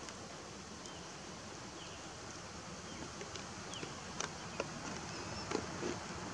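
Faint steady outdoor background noise with short, high chirps that fall in pitch every second or so, and four sharp clicks in the second half, the loudest near the end.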